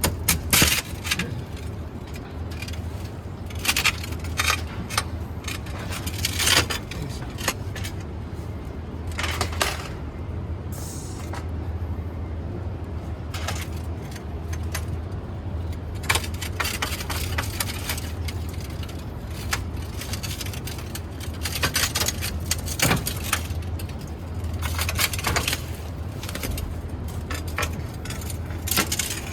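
Irregular clinks and scrapes of hand work on a putty-glazed window, with a steady low hum underneath. Typical of old glazing putty and broken glass being worked out of the frame.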